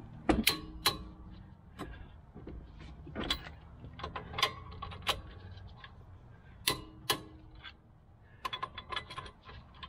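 Click-type torque wrench and socket tightening wheel spacer nuts to 90 ft-lb: sharp metallic clicks and clinks spaced through, including the wrench's release click as a nut reaches torque, with a quick run of smaller ratchet-like clicks near the end.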